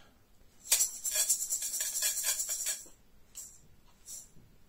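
A rapid jingling percussion rattle, like a shaken tambourine or shaker, lasting about two seconds, then a couple of faint short shakes near the end.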